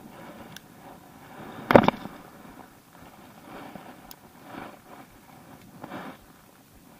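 Spinning rod and reel being cast and reeled in, with handling noise. One sharp, loud knock about two seconds in, followed by softer rustles as the reel is worked.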